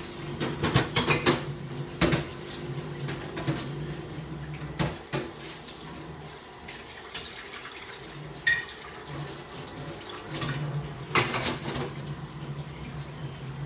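Washing-up at a kitchen sink: dishes, pans and cutlery clinking and clattering now and then over running tap water and a steady low hum.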